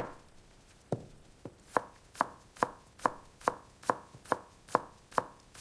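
A knife chopping vegetables, about a dozen evenly spaced strokes at a little over two a second, starting about a second in.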